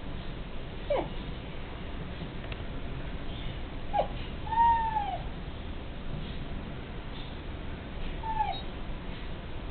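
A cat meowing four times with short, falling calls; the longest and loudest comes about halfway through.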